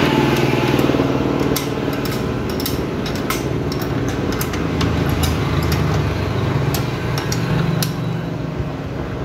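Sharp metallic clicks and taps of a wrench on the motorcycle's rear-axle chain adjuster bolt as the chain slack is set, over the steady low hum of an engine running.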